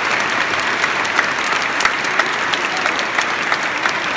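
Audience applauding: dense, steady clapping with many sharp individual claps.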